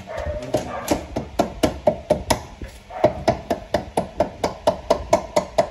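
Sharp, regular knocks from tool work on a scooter, about four or five a second, with a slight ringing under each strike.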